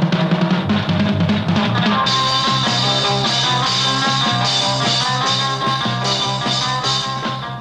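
Rock music with a steady drum beat; the band fills out with brighter instruments about two seconds in.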